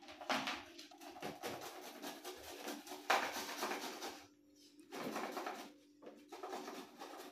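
Garlic and ginger being grated on a hand grater: quick rapid scraping strokes in three spells with short pauses between them.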